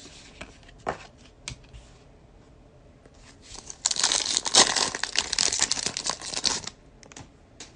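A foil wrapper of a Panini Select basketball card pack crinkling and tearing as it is ripped open, for nearly three seconds around the middle, after a few light clicks.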